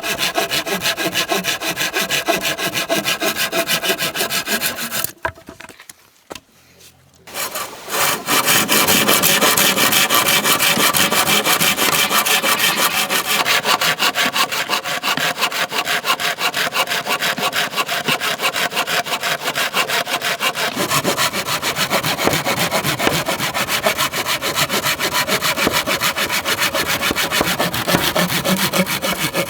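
Hand saw cutting through bamboo with quick, steady back-and-forth strokes. The strokes stop for about two seconds around five seconds in, then start again.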